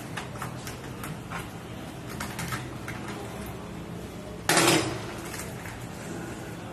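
A food container being handled and rummaged in by hand: a string of small knocks and clinks, with one louder, sharper clatter about four and a half seconds in.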